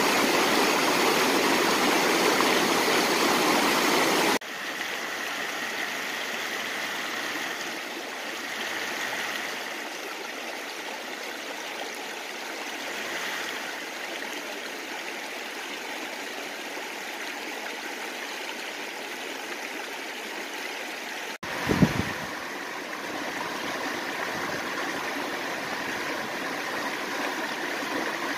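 Mountain creek water rushing over rocks, a steady rush of noise. It is loudest at first, then quieter after a sudden cut about four seconds in, and somewhat louder again after a brief low thump past the middle.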